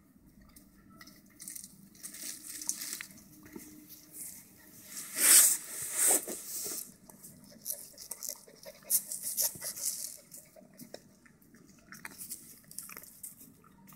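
Puppies play-wrestling on dry dirt: scuffling, rustling and wet mouthing and chewing noises in short irregular bursts, loudest in a cluster of rustles about five to six seconds in.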